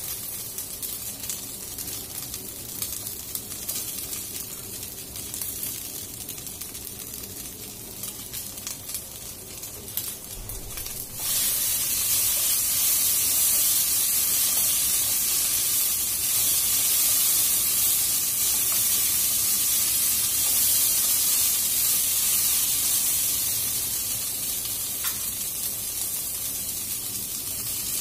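Beef and onion sizzling in a hot nonstick frying pan. About eleven seconds in, the sizzle suddenly gets much louder and stays that way as carrot sticks go in and are tossed with tongs.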